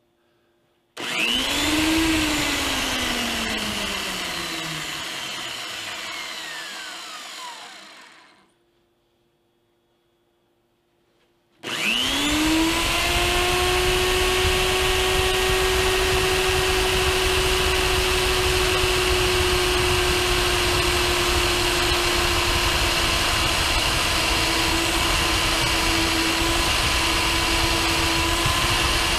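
Jancy magnetic drill's electric motor, in its higher gear speed with a drill chuck, starts with a quick rising whine and is switched off about a second later, winding down with a falling pitch over several seconds. After a short pause it starts again and runs steadily as the twist drill is fed into steel.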